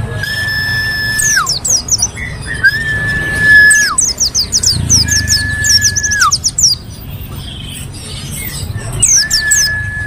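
Caged white-eye (pleci) singing: bursts of rapid, very high twittering chirps. A long level whistle that ends in a quick drop in pitch repeats four times between the bursts.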